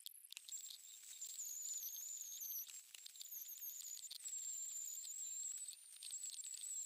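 Angle grinder with a flap disc running, a high-pitched whine that wavers and dips in pitch as the disc is worked against the rusty steel axe head to grind off the rust.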